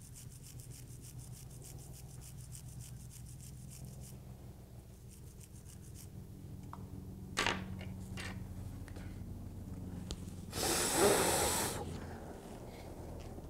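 Toothbrush scrubbing flux off an iPhone logic board with alcohol: soft, rapid rubbing over a steady low hum. There is a click about seven and a half seconds in, and a louder rushing noise lasting about a second near the end.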